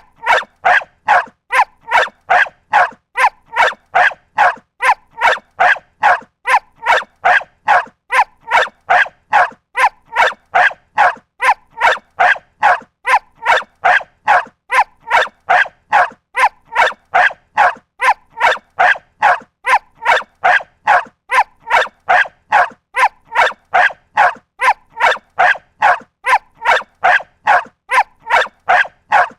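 A dog barking over and over at an even pace, about two barks a second, without a pause.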